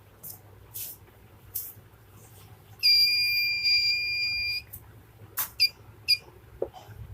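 Buzzer of a homemade laser security alarm sounding one steady high-pitched beep of nearly two seconds, about three seconds in, then two short chirps of the same pitch. Faint clicks and rustles come before the long beep, and a sharp click comes just before the chirps.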